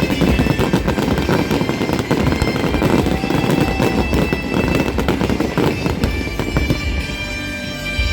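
Fireworks display going off in a dense, rapid barrage of bursts and crackles over loud music; the bursts thin out about six seconds in.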